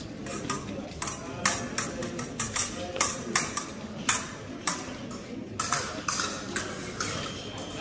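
Épée blades clashing and scraping against each other: a quick, irregular run of sharp metallic clinks between about one and six seconds in.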